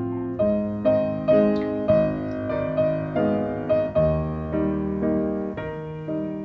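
Background piano music: a gentle, steady melody of struck notes and sustained chords.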